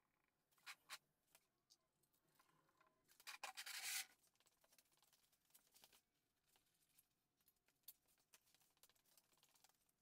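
Mostly near silence, with a few light clicks in the first second and a short stretch of rubbing and scraping about three seconds in, from work going on under the car.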